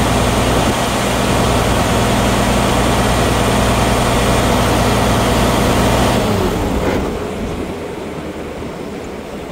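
Mercedes-Benz OM 473 LA inline-six diesel engine of a Claas Lexion 770 combine harvester running steadily, heard with the engine cover open. About six seconds in it shuts off and winds down, falling in pitch, leaving a fainter steady whoosh.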